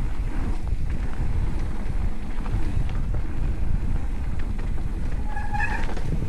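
Wind buffeting the microphone over the steady low rumble and small rattles of a mountain bike rolling down a rough dirt trail, with a brief high squeal near the end.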